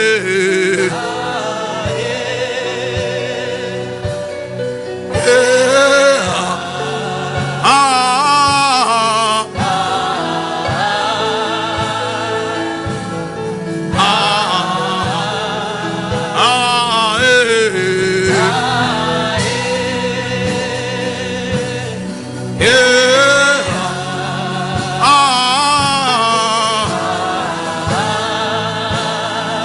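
Gospel worship music: singing in long, wavering phrases over sustained held chords.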